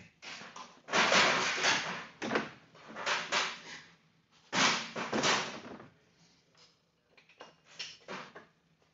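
Handling noise from hands working on the upended ATV's parts: irregular bursts of rustling and clattering, loudest about a second in and again midway, then scattered lighter clicks and knocks near the end.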